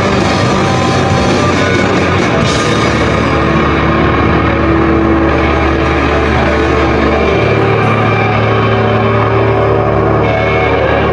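A live rock band playing loud distorted guitars, bass and drums. Cymbal crashes in the first couple of seconds give way to long held chords, and the low bass note changes about seven seconds in.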